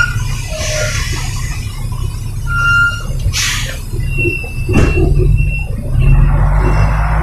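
Trailer truck heard from inside the cab: the diesel engine runs with a steady low rumble, short high-pitched squeals come and go, and there are two brief hisses, about three and a half and five seconds in.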